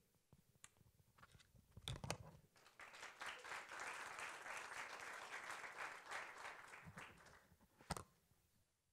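Audience applauding, building up about three seconds in and dying away around seven seconds, with a short knock before the clapping and another near the end.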